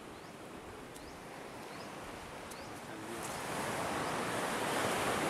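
A steady outdoor rushing noise that grows louder about three seconds in, with a few short, rising, high chirps of small birds in the first half.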